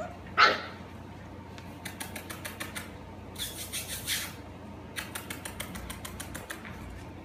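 Goldendoodle puppies playing: one short high yelp falling in pitch about half a second in, then runs of quick clicking and scrabbling with a brief rustle between them.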